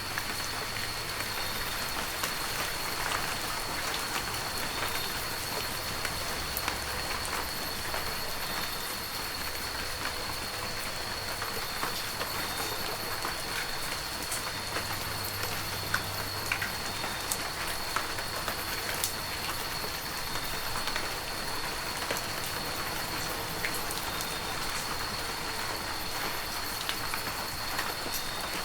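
Heavy rain falling steadily, with scattered sharp ticks of individual drops striking close by and a thin steady high tone underneath.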